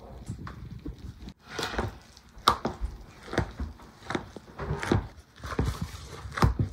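Boiled potatoes and butter being hand-mashed in a bowl with a metal utensil: repeated dull knocks against the bowl, roughly one a second, beginning about a second and a half in.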